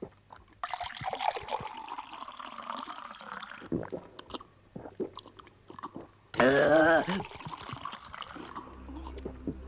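A man slurping and gulping water greedily from a glass, with wet mouth noises and small swallowing clicks, then one loud, short cry from a man's voice about six and a half seconds in. Music comes in near the end.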